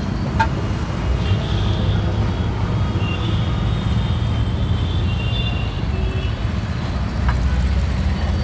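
Steady road traffic noise: a continuous low rumble of passing vehicles, with a few faint high tones coming and going.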